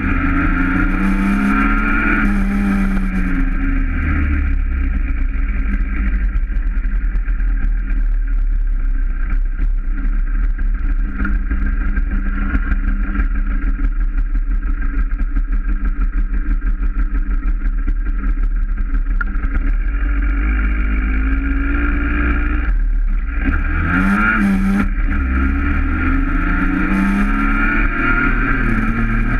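Small motorbike engine running under way, its revs rising and falling a few times, with a brief dip about 23 seconds in as the throttle is closed, then a rising rev.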